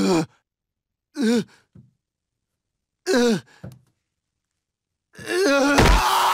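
Cartoon baby's pained, sunburned groans: two short groans, then a long loud wail from about five seconds in, with a thud as he collapses onto the floor.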